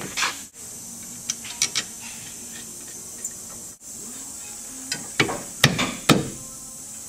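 Scattered clicks and knocks of rear disc brake parts, the caliper and pads, being handled and fitted by hand, over a steady hiss. The knocks come in a busier cluster about five seconds in, with the loudest two about a second before the end.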